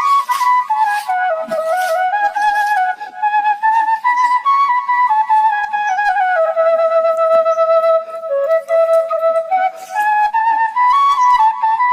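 Background music: a solo flute playing a slow melody that dips low, climbs, sinks again and rises back near the end.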